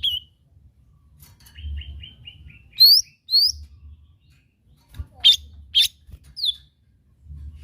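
Lesser green leafbird (cucak ijo mini) singing a lure song. It starts with a quick run of about five short chirps, then gives two rising whistles, then two sharp notes and a falling slur near the end. A faint low rumble sits underneath.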